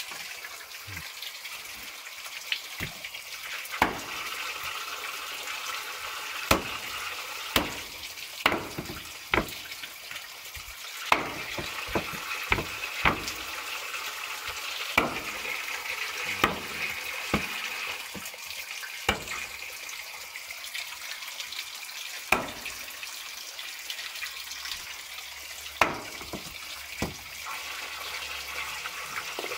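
A large knife chopping civet meat on a wooden chopping board: sharp, single chops at irregular intervals, one to a few seconds apart, over a steady hiss.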